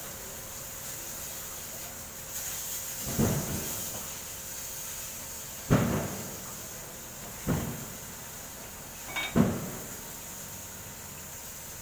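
Parts and tools being handled in a haul truck's engine compartment: four dull knocks about two seconds apart over a steady background hiss.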